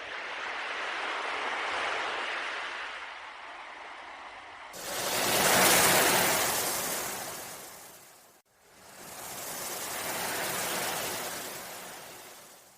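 Sea waves washing in and receding in three swells, the middle one the loudest; it starts abruptly and cuts off sharply near the end.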